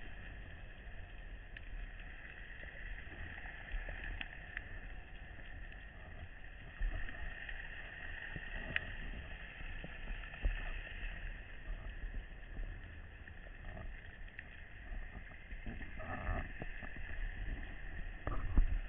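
Underwater ambience: a steady muffled hiss of seawater with scattered faint clicks. A few low thuds come near the end.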